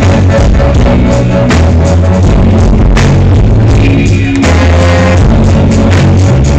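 Live reggae band playing loud, with a heavy bass line and drums, recorded on a phone near full level so the sound is harsh and distorted.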